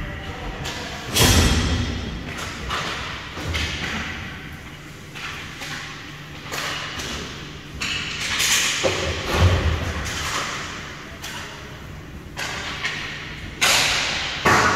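Hockey play in a rink: a run of sharp thuds and knocks from puck, sticks and bodies hitting the boards. The loudest thuds come about a second in and again near the end.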